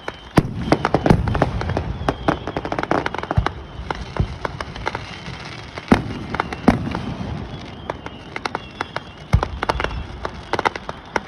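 Aerial fireworks going off: dense runs of sharp crackling reports, with heavier booms about a second in, around six seconds, and near the end.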